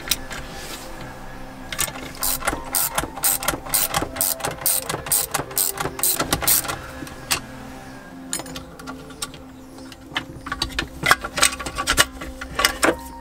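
Socket ratchet wrench clicking in quick strokes as it turns the bolt of a metal band clamp, in two runs with a short pause between. Background music plays underneath.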